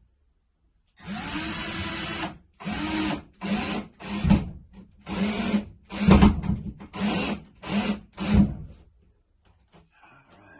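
Power drill driving a mounting screw into the wall: one run of about a second and a half, then about eight short trigger bursts, the motor's pitch dipping and rising with each.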